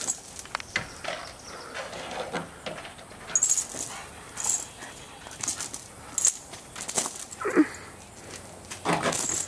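Chained dog jumping about for food held above it, its metal chain jingling in several short bursts, with a short whine about seven and a half seconds in.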